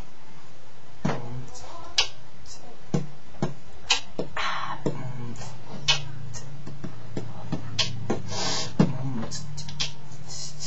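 Beatboxing: vocal percussion starting about a second in, with strong pops roughly once a second, quicker clicks between them and hissing cymbal-like sounds, over a low steady tone.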